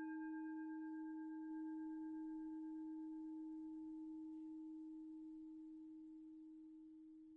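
Singing bowl ringing on after a strike and slowly fading: one steady low note with a few fainter higher overtones, which die away first.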